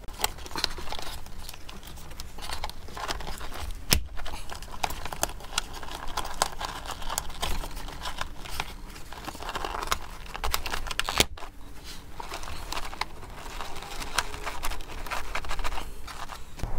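Hands working a bundle of wires into a plastic wiring channel: rustling and crinkling of wire insulation and plastic with many small clicks, and two sharper clicks, about four seconds in and again about eleven seconds in.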